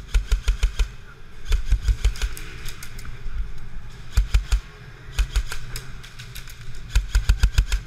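Airsoft gunfire: rapid bursts of sharp clicking shots, five short strings of several shots each, with the quickest and longest string near the end.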